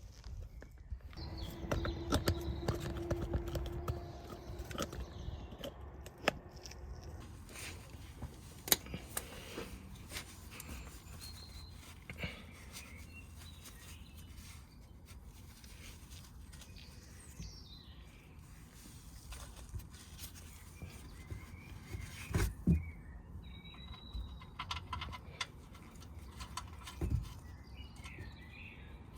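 Scattered clicks and knocks, with birds chirping in the background. A louder low rumble with a steady hum comes in about a second in and fades after a few seconds.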